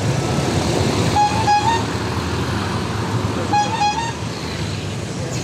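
A vehicle horn toots in two short bursts about two seconds apart, each a quick run of beeps that steps up in pitch. Underneath is the steady noise of street traffic with engines running.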